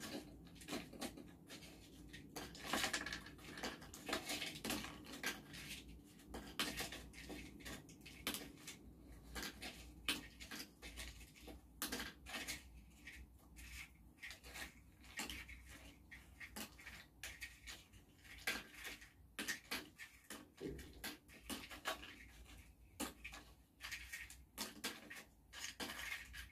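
Frequent faint, irregular clicks of chopsticks tapping small ceramic dishes and dried beans being picked up and dropped into them.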